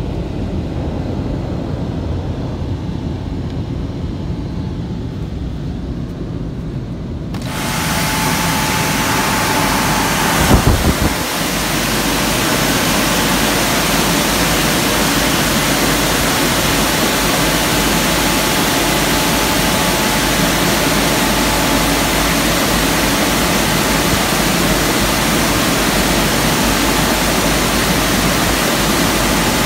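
Dryer blowers of a WashTec SoftCare 2 Pro rollover car wash, heard from inside the car. A low rumble runs first, then about seven seconds in the blowers cut in with a sudden loud rush of air. After a brief surge a few seconds later, the air keeps rushing steadily as the gantry passes over.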